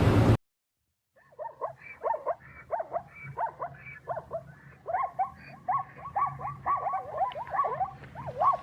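An animal giving a long run of short, high yelping calls, two or three a second, starting about a second in after a brief burst of noise cuts off.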